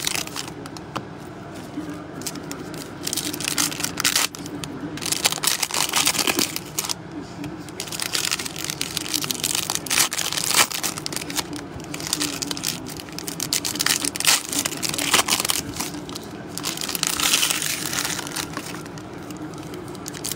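Plastic wrapping on trading-card packs crinkling and tearing in irregular crackly bursts as a card box is opened by hand.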